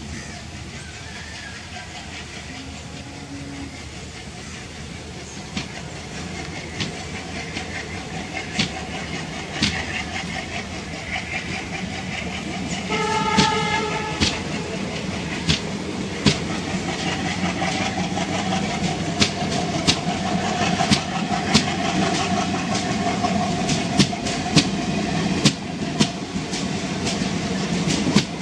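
Blue Indian Railways passenger coaches rolling past close by with a steady rumble, their wheels clicking over the rail joints, the clicks growing louder and coming quicker toward the end. A short horn tone sounds about halfway through.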